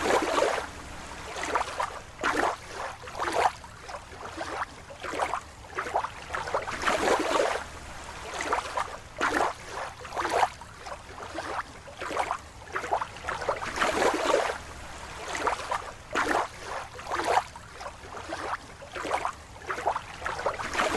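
Water sloshing and splashing in irregular surges, as a rubber toy fish is swished about in a plastic tub of water.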